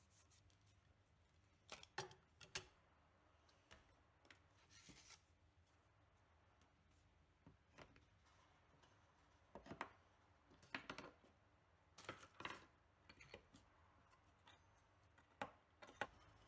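Claw hammer prying nails and nailed-down wooden battens loose: scattered faint knocks and scrapes in short clusters with quiet pauses between.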